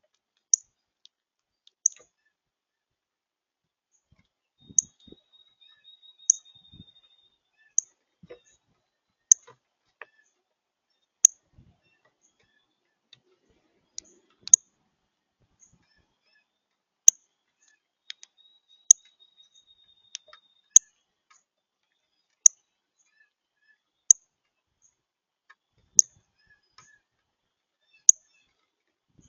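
Small songbird calls: a sharp, high chip note repeated every second or two. Twice a steady trill of about two and a half seconds joins in, and a few faint soft knocks come near the start.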